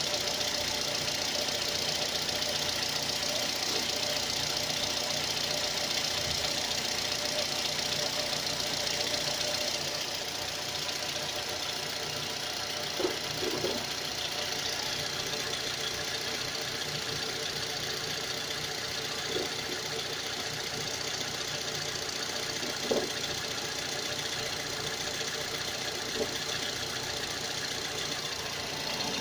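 Car engine running steadily with an extraneous noise coming from under the hood. A few separate, louder knocks stand out at irregular moments in the second half.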